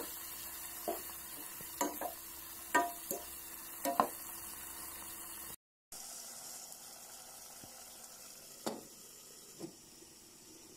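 Chicken liver, onion and garlic sizzling in hot oil in a pan, with a spatula scraping and knocking against the pan about once a second. After a short break the sizzle goes on more quietly, with two more knocks.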